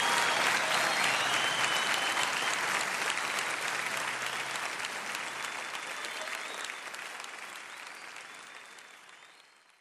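Audience applauding, fading out steadily to silence near the end.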